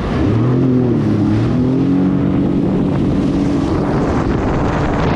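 Motorised watercraft engine running under way. Its pitch rises and dips in the first second or so, then holds steady, over a steady rush of wind and water.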